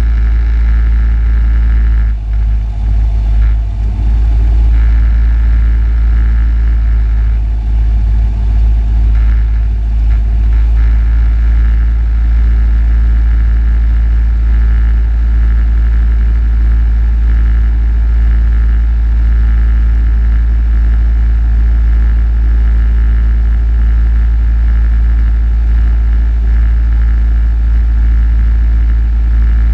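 Cessna 172's piston engine and propeller running steadily, heard inside the cockpit.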